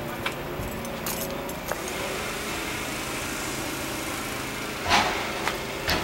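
A few light clicks, then a short rattling clatter about five seconds in followed by two smaller clicks, over a steady outdoor background hum.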